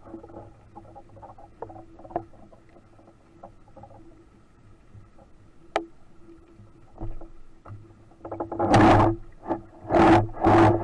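Underwater sound through a camera housing: a steady low hum with scattered small clicks, then from about eight seconds in a run of loud rushing bursts, roughly two a second.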